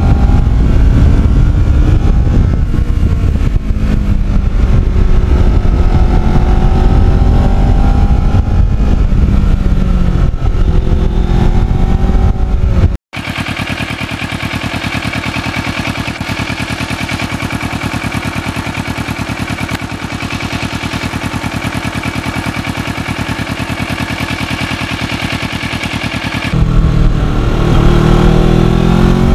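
Kawasaki Ninja 650R's parallel-twin engine under way, its pitch rising and falling through the revs. About thirteen seconds in it cuts off abruptly and gives way to a quieter, steady engine sound with no change in pitch, which matches the bike standing parked and idling; near the end the louder, varying riding sound returns.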